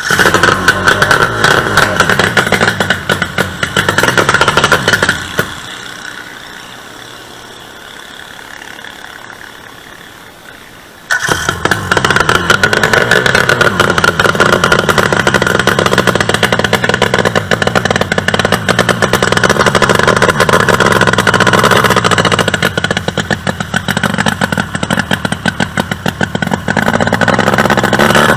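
Super Open class two-stroke racing engine running loud. It cuts away about five seconds in, then bursts back to full running about eleven seconds in and keeps going at high, rapidly fluttering revs.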